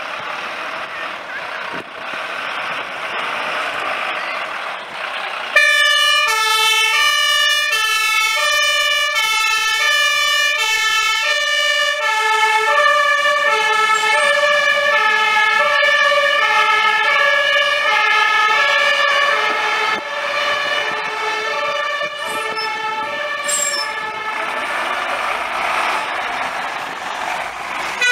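Fire engines setting off on an emergency call. Diesel truck engines run, then about five seconds in a loud two-tone hi-lo siren starts, alternating high and low notes about once a second. A second two-tone siren overlaps it later, and engine noise grows near the end as a truck passes.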